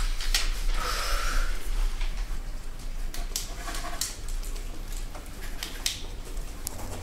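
Pens writing on paper at classroom desks: scattered short scratches, with a short breathy sound about a second in and a low steady hum underneath.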